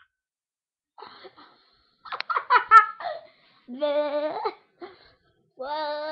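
Two girls laughing hard in short choppy bursts, then a drawn-out cry of "Oh!" about four seconds in and another long held cry near the end.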